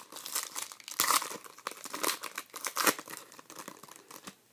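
Foil wrapper of a Panini Contenders hockey card pack being opened by hand: irregular crinkling and tearing rustles, loudest about a second in, dying away just before the end.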